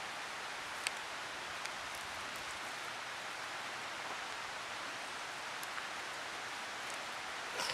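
Steady outdoor background hiss with a few faint, short clicks.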